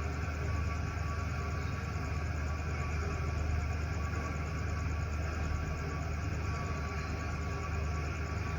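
A steady low hum with a few faint steady tones above it, unchanging throughout, with no distinct events.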